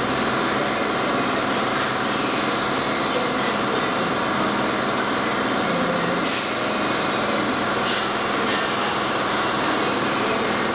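Warco Super Mini Lathe running steadily on its brushless motor, an even mechanical hum with a few faint ticks.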